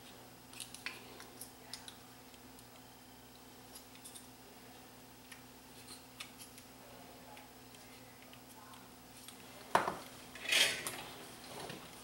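Small clicks and taps of electrolytic capacitors and a power-supply circuit board being handled as the capacitors' leads are fitted into the board, over a faint steady hum. A sharper click and a few louder scraping rustles come near the end.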